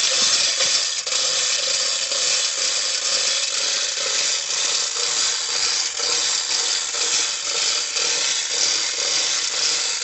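Metal clinking and scraping of iron chain and a makeshift iron hook against the steel borewell casing as they are worked down the pipe, over a steady background noise.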